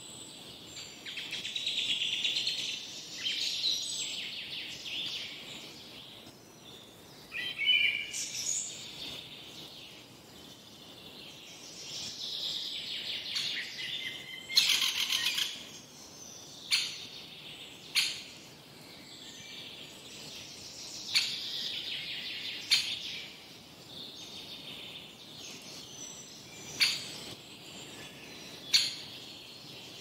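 Several woodland birds singing, with overlapping warbling and trilling phrases coming and going. In the second half, a brief rustle and a scatter of short sharp clicks stand out as the loudest sounds.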